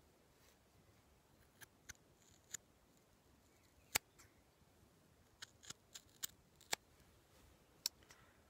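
Sharp fabric scissors snipping through hand-knit sweater fabric: about ten short, crisp snips at irregular intervals, the loudest a little before the middle, as a steek is cut open for an armhole.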